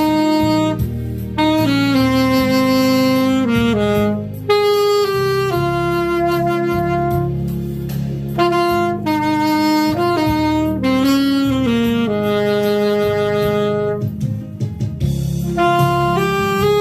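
Alto saxophone playing a slow melody of long held notes that step and slide between pitches, over a low accompaniment.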